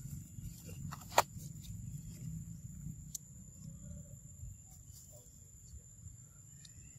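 Steady high-pitched drone of insects over a low rumble, broken by one sharp loud click about a second in and a fainter click near the middle.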